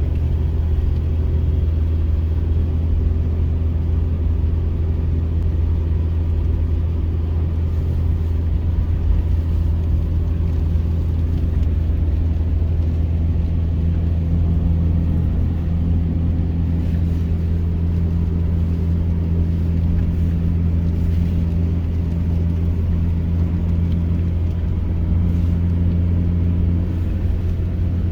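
Mitsubishi Pajero iO driving at a steady speed: a steady low engine and road rumble with an even hum.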